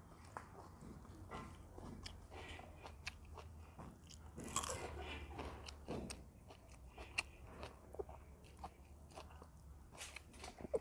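A person chewing food close to the microphone: wet mouth clicks and scattered crunches. The loudest crunch comes about four and a half seconds in.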